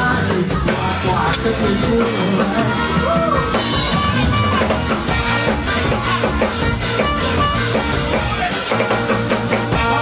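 Loud music with a drum kit keeping a steady beat.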